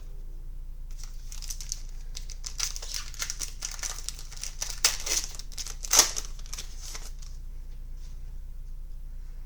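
Trading card pack wrapper crinkling and crackling as it is torn open and pulled apart by hand, with two sharper snaps in the middle.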